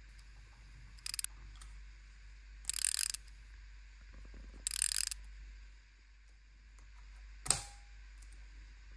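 Hinged joints of a Telesin magnetic phone mount ratcheting as they are folded, in three short bursts, the middle and last ones longer. A single sharp click near the end as the mount snaps into the neck holder's base.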